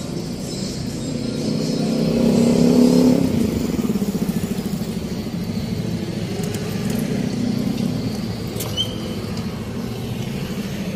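Street traffic: engines of passing vehicles running close by, loudest as one goes past about two to three seconds in.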